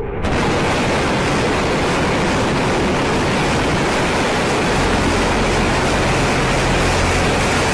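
Rocket engines at liftoff: a loud, steady rushing noise that steps up in level a moment in and then holds.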